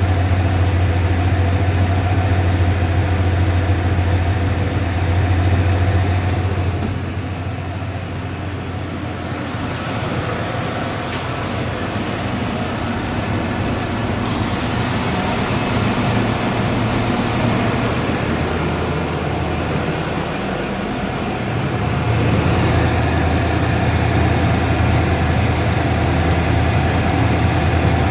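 Ford 5.0 L V8 of a 1995 F-150 idling steadily, with the ticking from the driver's side of the engine that the owner is trying to trace. The deep hum of the engine weakens for a long stretch in the middle and then comes back.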